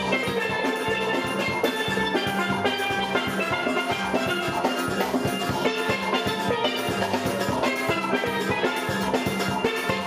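Steel band playing: several steel pans struck with rubber-tipped sticks in a fast, even rhythm of bright ringing notes over a low bass line.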